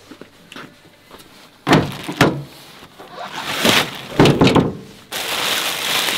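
Pickup truck's tailgate opening, with two sharp clunks just under two seconds in, followed by plastic sheeting crinkling and rustling as it is handled and spread out.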